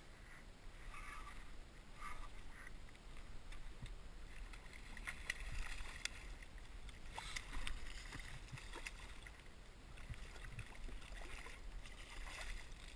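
Water splashing and sloshing beside a kayak as a hooked striped bass thrashes at the surface, with a cluster of sharper splashes in the middle.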